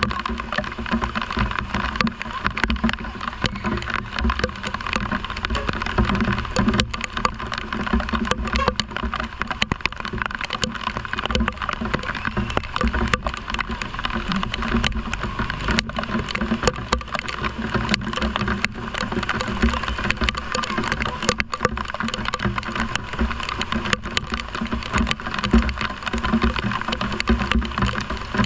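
Steady heavy rain: a dense, even hiss dotted with many small sharp taps, over a low rumble.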